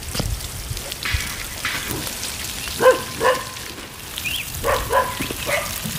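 Water pattering from a watering can's rose onto soil and seedling leaves. Over it, short animal calls come in pairs, a couple of times near the middle and again toward the end.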